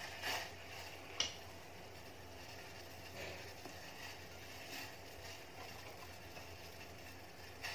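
Besan gatte (chickpea-flour dough rolls) dropped one by one into a steel pot of boiling water: a few soft plops and light knocks, with one sharp click about a second in, over a faint steady hiss.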